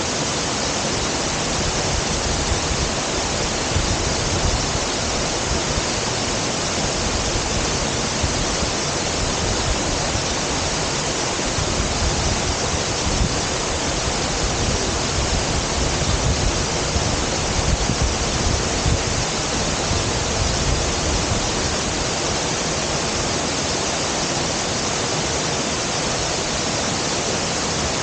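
Waterfall rushing steadily, a dense even roar of falling water, with a gusty low rumble underneath.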